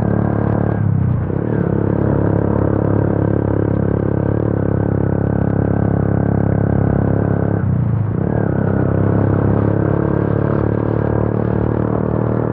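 Single-cylinder motorcycle engine of a Yamaha FZ V2 running loud through an Akrapovic exhaust with its dB killer removed, a steady droning exhaust note while riding. The engine note drops and picks up again about a second in and around eight seconds in.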